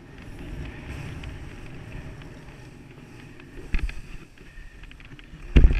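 Skis sliding and hissing over snow, with wind rumbling on the microphone. There are two sharp knocks, one about four seconds in and a louder one near the end.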